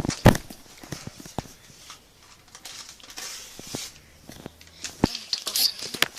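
Paper being handled and rustled during crafting, with a series of sharp taps and knocks; the loudest knock comes just after the start and another about five seconds in.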